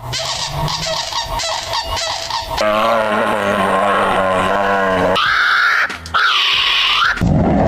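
Animal calls in a sequence of abruptly cut short clips: a long wavering pitched call in the middle, then two short calls that rise and fall in pitch near the end.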